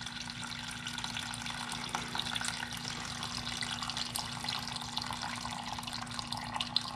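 Water-contaminated engine oil, almost clear water, pouring in a steady trickle from the oil drain of a seized Honda CB550 engine.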